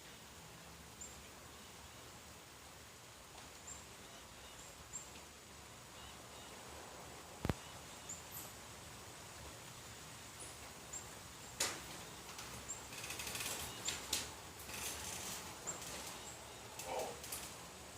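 Light rain falling as a faint steady hiss, with scattered drips ticking and a crackling patter of them about two-thirds in. A faint high chirp repeats every second or two.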